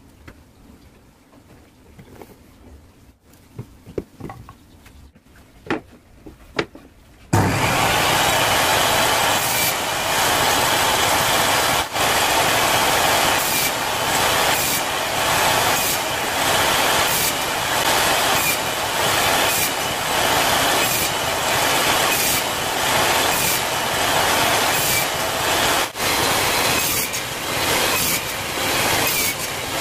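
Light clicks and taps of wooden strips being handled, then, about seven seconds in, a table saw cuts in suddenly and runs loudly, its blade cutting a wooden strip on a crosscut sled into short wedge-shaped blocks, the noise swelling with each pass.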